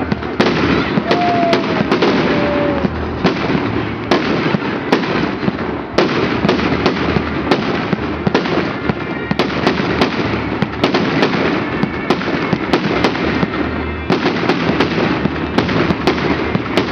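Massed fireworks going off: a continuous din of overlapping bangs and crackling, with many sharp reports throughout.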